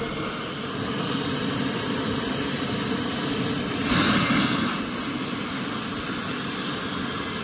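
Steady hiss of a stove burner under a pot of biryani masala sizzling as it is stirred, swelling briefly about four seconds in.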